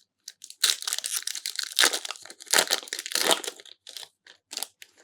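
Crinkling of a trading-card booster pack wrapper being crumpled and opened, in a run of rustling bursts that ease off after about three and a half seconds into a few light clicks.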